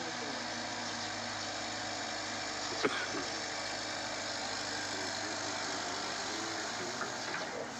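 Hydraulic excavator's diesel engine running steadily as it works a crushed-stone stockpile, among the continuous noise of heavy machinery. A single sharp knock comes about three seconds in.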